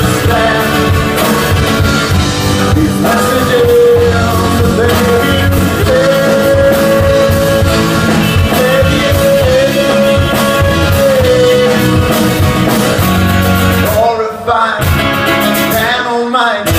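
A rock song with singing and a band, with long held melody notes in the middle and two brief breaks near the end.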